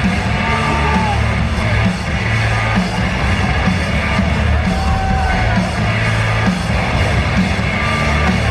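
Loud rock music with a heavy, regular bass beat over an ice-hockey arena's sound system during the team's pre-game introduction, with a crowd yelling and cheering over it.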